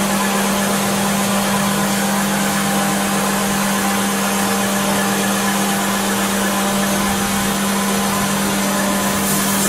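Subaru Baja's flat-four engine idling with the A/C compressor running during an R134a recharge: a steady hum over broad rushing noise, the hum stopping right at the end.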